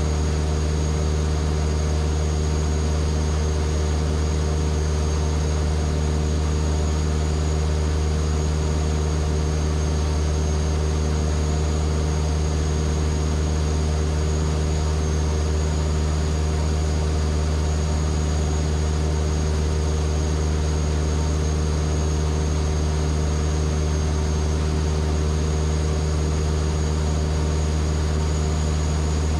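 Van's RV-7A's piston engine and propeller droning steadily, heard inside the cockpit in level cruise flight, with a thin steady high whine above the drone.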